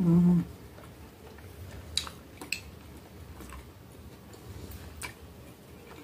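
A short closed-mouth "mm" hum right at the start, then two sharp clicks of a metal fork against a glass baking dish about two and two and a half seconds in, with fainter ticks of the fork on the glass later.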